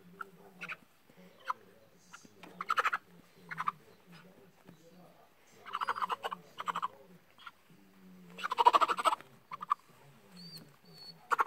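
Domestic hen squawking in distress in short harsh bursts, loudest about three, six and nine seconds in, while a small dog pins it to the ground.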